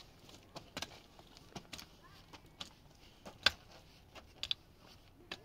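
A series of irregular sharp knocks and clicks, the loudest about three and a half seconds in.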